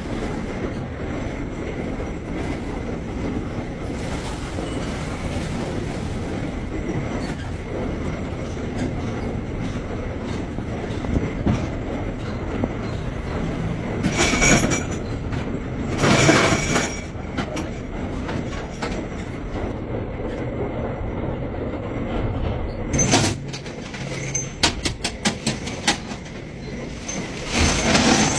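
Machinery running with a steady low rumble. About halfway there are two louder rushes of noise, and near the end comes a quick run of sharp clicks.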